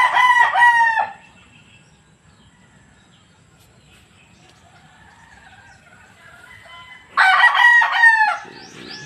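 Gamecock crowing twice, a full cock-a-doodle-doo of about a second each: one right at the start and another about seven seconds in.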